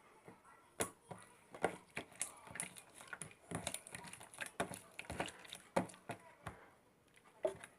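Sticky clicks and wet squelches of slime being worked by hand in a container, coming unevenly about one or two a second.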